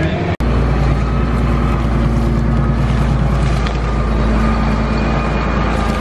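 A tractor engine running steadily at an even pitch, heard close, after a split-second dropout near the start.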